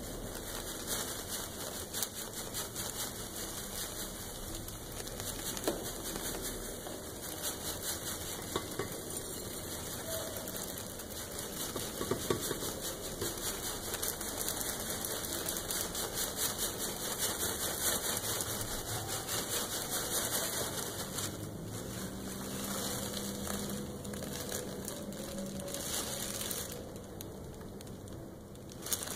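Malted grain pouring from a plastic bag into a stainless steel brewing pot: a steady dense rattle of many small grains falling. It thins out near the end.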